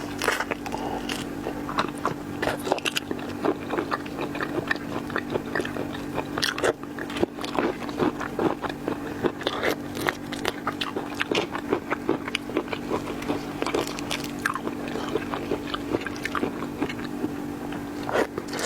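Close-miked chewing and biting of shellfish: irregular wet crunches, cracks of shell and smacking throughout, over a steady low hum.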